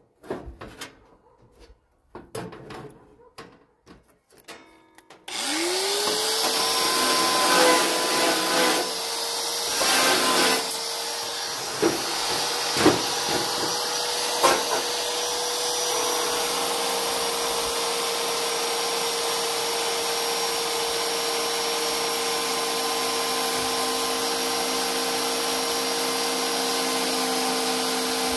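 Scattered clicks and knocks of handling. About five seconds in, an electric motor spins up quickly and runs at a steady speed with a hissing rush, and a few knocks sound over it in the first several seconds.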